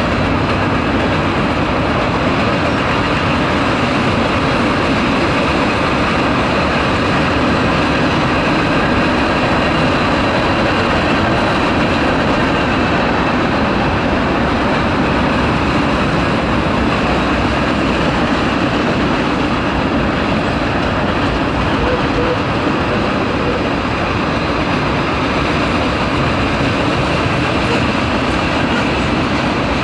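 Freight cars of a long manifest train rolling past: tank cars and covered hoppers, with a steady, loud noise of steel wheels running on the rails.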